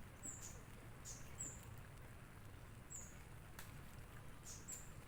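Faint, short, high chirps of a small bird, each falling slightly in pitch and repeated irregularly, over a steady low hum with a few faint clicks.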